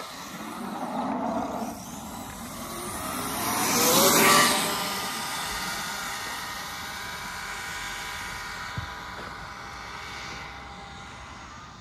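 Kyosho Mad Force RC car's brushless electric motor whining as the car drives past. The sound swells to its loudest about four seconds in, with a short rise in pitch, then carries on steadier and fainter.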